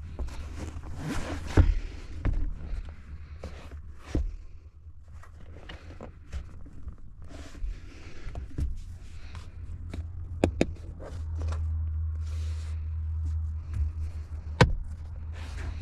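Hands rubbing the cloth upholstery and handling the fold-down rear centre armrest of a Renault Megane 2: rustling, scraping and sharp plastic clicks and knocks, over a low steady hum.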